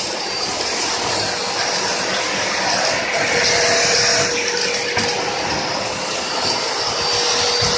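Two-motor industrial vacuum cleaner running: a steady rushing of air with a constant whine.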